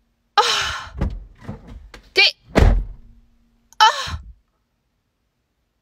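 Car door thudding shut, with several dull thunks on the door, the heaviest a little past halfway, mixed with short gasping vocal sounds.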